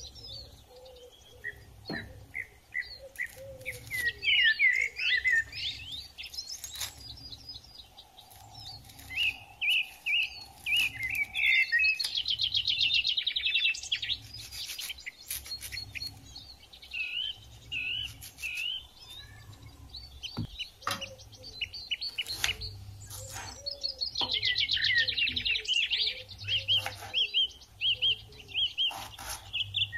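Several birds chirping and singing: repeated short whistled calls and chirps, with two bursts of fast trills, one near the middle and one near the end.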